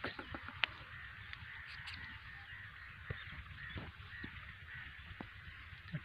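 Faint calls of distant fowl, with scattered light clicks and a low rumble.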